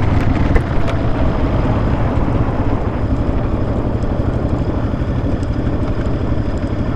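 Dual-sport dirt bike's single-cylinder engine running steadily at low revs, with no change in pitch.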